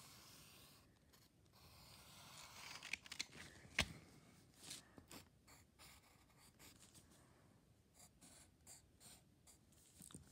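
Faint scratching of a pen drawing straight lines on notebook paper, with one sharp click a little before four seconds in and small soft taps and rustles of hand and paper afterwards.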